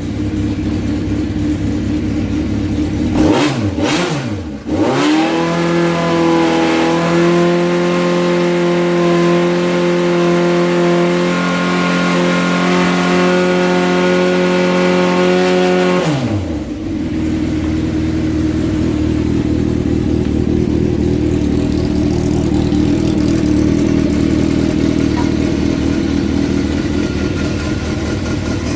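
Honda CBX550F's air-cooled inline-four engine running just after its carburettor fault was repaired: idling, blipped twice about three and four seconds in, held at a steady raised speed for about ten seconds, then dropping back to a steady idle.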